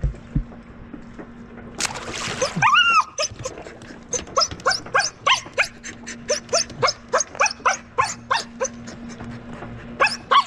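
A splash as a thrown stick lands in the water about two seconds in. Then a dog whines in one long falling cry and a rapid string of short, high-pitched yelps, about two or three a second, straining to fetch the stick but not yet daring to jump off the dock.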